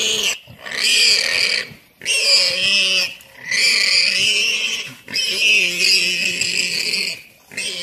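Warthog squealing in distress as a leopard holds onto it: loud, high-pitched squeals of about a second each, repeated about six times with short breaks between them.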